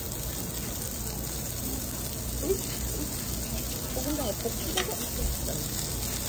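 Pork belly sizzling on a hot coal-briquette tabletop grill as raw slices are laid on. There is a sharp metal click about three-quarters of the way through.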